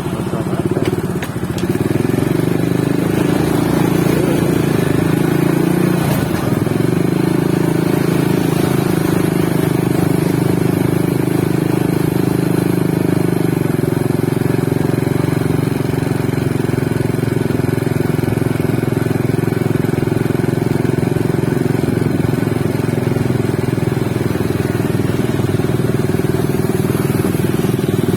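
Motorcycle engine running steadily, its pitch shifting only slightly.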